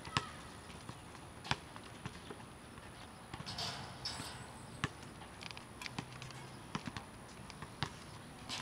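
Scattered dull knocks of a football being struck with the foot, knee or head and bouncing on a concrete court, each a second or more apart, the sharpest just after the start.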